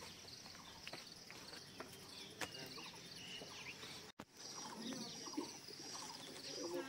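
Faint outdoor ambience: a steady low hiss with scattered faint chirps of birds and insects, broken by a brief dropout about four seconds in.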